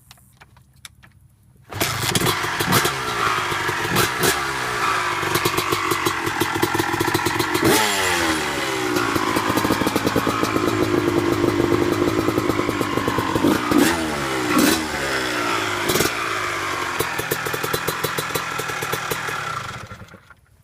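2001 Honda CR250 two-stroke single-cylinder dirt bike engine catching about two seconds in, then running and being blipped several times with sharp rises in pitch, before it is shut off near the end.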